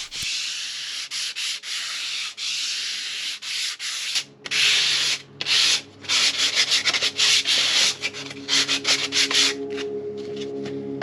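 Sanding block with 80 grit sandpaper rubbing over cured wood filler on a timber door frame. A steady scratchy rasp at first, then separate back-and-forth strokes with short pauses, which stop near the end.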